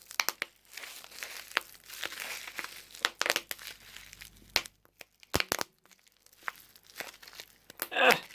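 Bubble wrap crushed and twisted by hand in one bunch: plastic crinkling with scattered sharp pops of bubbles bursting, and a louder burst of crackling near the end.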